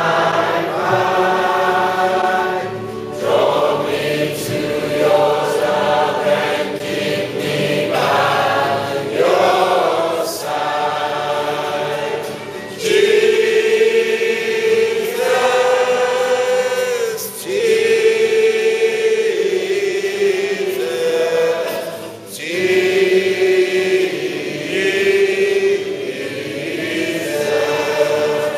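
Church choir and congregation singing a hymn together, with instrumental accompaniment, in long held phrases.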